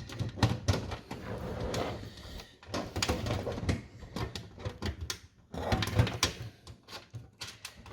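Metal clicks, knocks and rattles as a steel drive-bay cage is handled and fastened into a PC case, coming in several irregular bursts.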